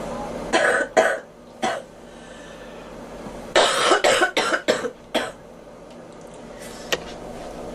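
A girl coughing: three separate coughs in the first two seconds, then a quick fit of about six coughs in a row.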